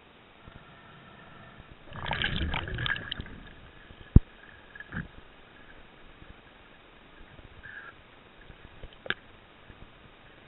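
Muffled underwater noise picked up by a diver's camera: a rough burst of noise about two seconds in lasting just over a second, then a single sharp click about four seconds in and a few fainter knocks later.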